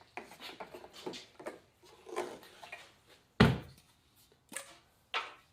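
Handling noises while a snowblower is readied for fuelling: scattered small knocks and clicks, with one sharp, loud thump about three and a half seconds in.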